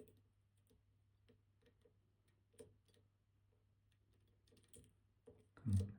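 Faint, irregular metallic ticks and clicks of a lock pick probing the levers inside a MIWA PR lever lock held under tension, checking which levers bind. A short voiced sound comes near the end.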